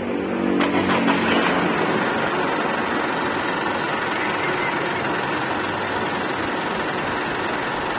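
Mitsubishi Montero diesel engine starting up about half a second in and then idling steadily, just after its fuel filter was replaced and the fuel system bled.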